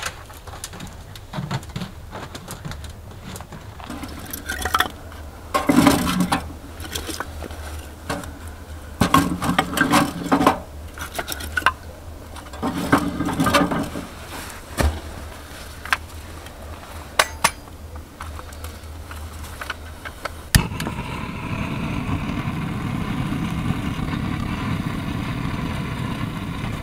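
Split firewood knocked and dropped into a small titanium wood stove: a run of hollow clunks and clatters in several bursts. About twenty seconds in, a steady hissing rush starts abruptly and runs on: a gas torch flame at the stove door lighting the wood.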